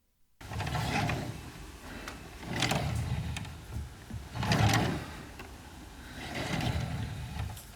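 A drawer sliding open and closed: four rumbling slides about two seconds apart, with a few sharp knocks as it stops.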